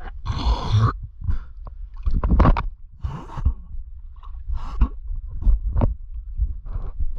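Water sloshing and lapping against a waterproof action camera held at the sea surface: irregular muffled thuds with brief splashy washes every second or so.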